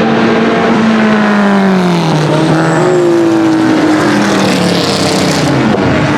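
Historic race car engines running at speed on track; the engine pitch drops over about a second, then holds fairly steady as the cars carry on past.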